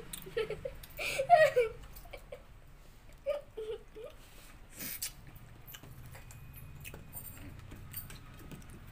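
Short voice sounds, like a brief giggle, in the first two seconds and again briefly around three to four seconds in. Then quieter eating by hand from steel plates: soft clicks and smacks of fingers working rice and chicken curry, with one sharp click about five seconds in.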